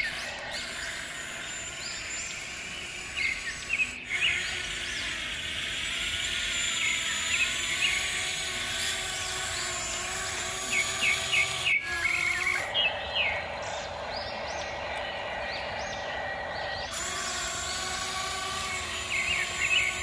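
Whine of a toy RC excavator's small electric motors, wavering in pitch, buzzing louder for a few seconds in the middle. Short runs of quick bird chirps sound three times over it.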